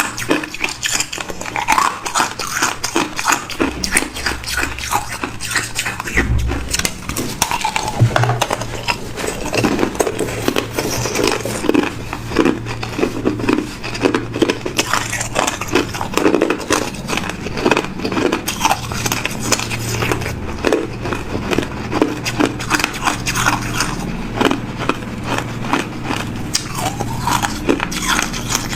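Hard ice being bitten and crunched by a person's teeth, close up: a dense, continuous run of sharp cracks and crunches.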